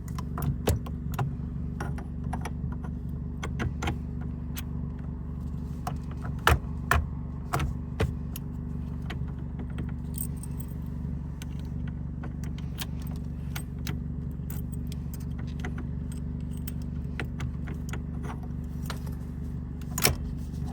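Honda Civic Si's turbocharged four-cylinder engine idling steadily, heard from inside the cabin, with scattered light clicks and jingles like keys being handled.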